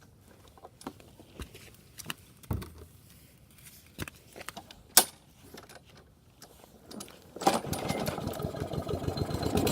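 Scattered clicks and knocks, one of them sharp about five seconds in. Then, about seven and a half seconds in, the Toro Recycler lawn mower's engine is pull-started and catches, running and growing louder toward the end. The mower starts on its new air filter.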